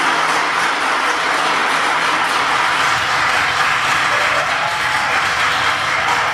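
Dense, steady applause from many people clapping at once.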